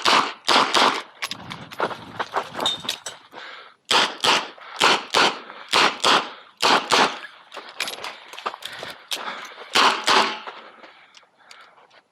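Smith & Wesson 929 9mm revolver fired in quick strings, about two shots a second. A gap of about two seconds comes about two seconds in, and softer clicks and clatter fall between the strings.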